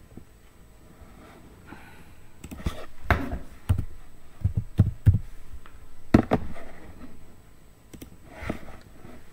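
Computer keyboard keystrokes and mouse clicks picked up by a desk microphone: a cluster of sharp clicks and knocks in the middle, then a few more spaced out.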